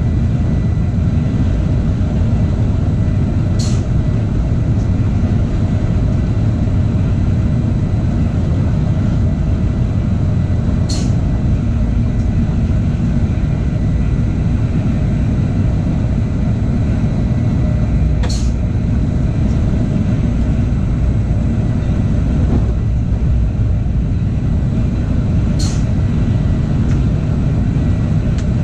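Regional train running steadily, heard from the driver's cab: a continuous low rumble of wheels on rail and running gear. A short sharp click comes about every seven seconds, four times in all.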